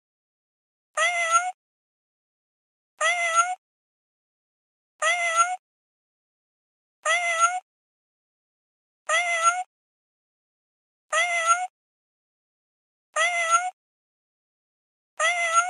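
Kitten meowing: one short, high meow repeated eight times, evenly about two seconds apart. Each meow is the same call, rising then falling slightly in pitch, with silence in between.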